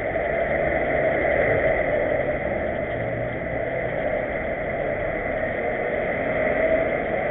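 Steady street traffic noise, with car engines running close by.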